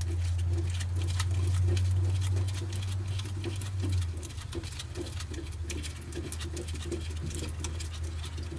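Light metallic clicking and scraping as a nut is turned back off the threaded front strut rod by hand, over a steady low hum that eases off about four seconds in.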